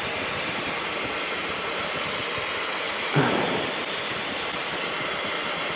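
Steady in-flight cabin noise of a light sport aircraft in level cruise: the Rotax four-cylinder engine and propeller with airflow, an even rush with no changes in power. About three seconds in there is a short burst of noise from the radio, a squelch break.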